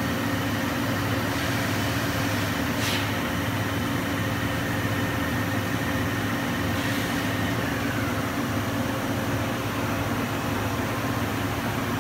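Steady hum of running machine-shop machinery, with several steady low tones and a high whine that slides down and fades about eight seconds in. A short hiss comes about three seconds in.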